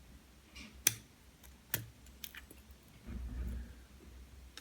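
Small sharp metallic clicks of a lock pick and tension wrench working inside an American Lock 1100-series padlock: two louder clicks about a second and just under two seconds in, a couple of fainter ones after, then a short low rumble of handling a little after three seconds.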